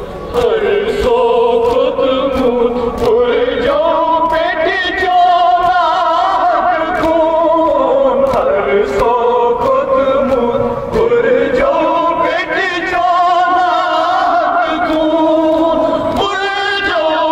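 Men's voices singing a Kashmiri nauha (Muharram lament) in drawn-out melodic lines, with several voices together. Sharp beats fall at a steady pace all through, the mourners' rhythmic chest-beating (matam).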